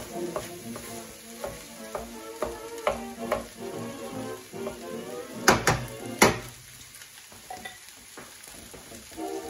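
Wooden spoon stirring and scraping rice around a sizzling stainless steel frying pan, with strokes about twice a second. A little over five seconds in come three sharp knocks of the spoon against the pan, then only the frying is left.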